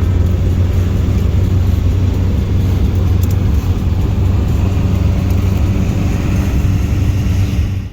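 Car on the move: steady engine and road rumble, cut off abruptly near the end.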